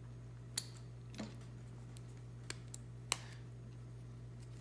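A few small, sharp clicks, about five spread over a few seconds, as a rotary tattoo machine is handled and its clip cord is pulled off the connector, over a faint steady low hum.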